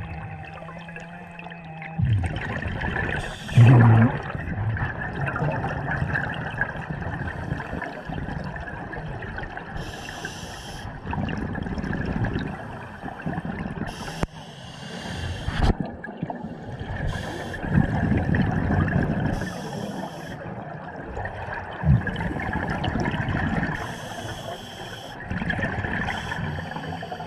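Scuba diver breathing through a regulator underwater: hissing inhalations every few seconds alternate with bubbling, gurgling exhalations. A loud bump about four seconds in.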